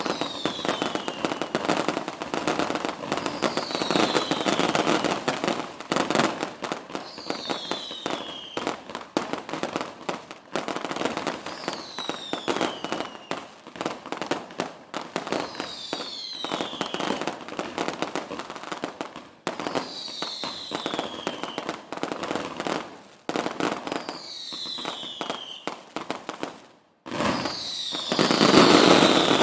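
Fireworks going off: dense, rapid crackling and popping, with a short falling whistle about every four seconds. Near the end the sound drops out for a moment, then comes back at its loudest.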